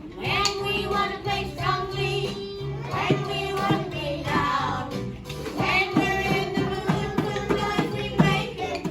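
A child singing a song over instrumental backing, with held low chords and repeated plucked or struck notes beneath the voice.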